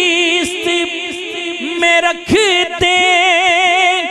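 A man singing a naat, an Urdu devotional poem, into a microphone, drawing out long ornamented notes with a wavering vibrato.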